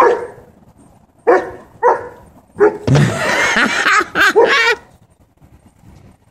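Young dog barking while playing in snow: a sharp bark at the start, single barks about one and two seconds later, then a rapid run of barks for about two seconds before it goes quiet.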